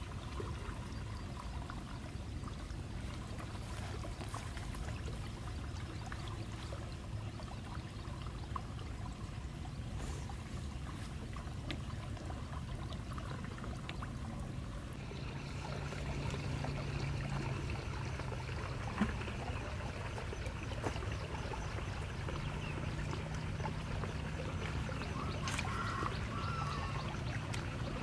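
Shallow water trickling steadily over a low rumble. About halfway through it grows a little louder and brighter, with a few small clicks and knocks.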